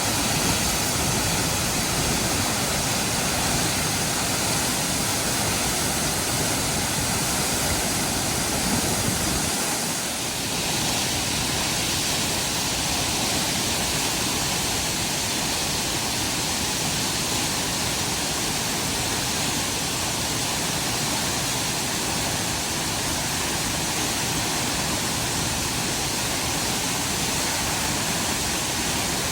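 Waterfall on the Little Mashel River: a steady, dense rush of falling water, with a brief slight dip in level about ten seconds in.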